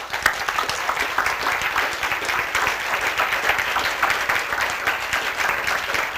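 Audience applauding, steady dense clapping from many hands.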